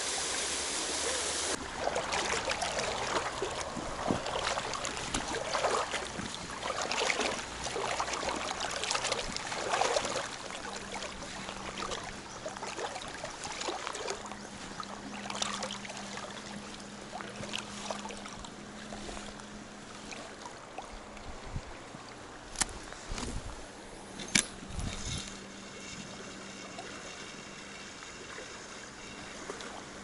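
Footsteps wading and splashing through a shallow, stony mountain stream, about one step a second for the first ten seconds, then the stream's steady running water, with two sharp knocks near the end.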